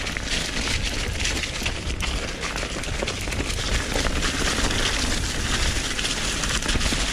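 Mountain bike tyres rolling fast over a dirt trail covered in dry fallen leaves: a continuous crackling hiss full of small clicks, over a low rumble.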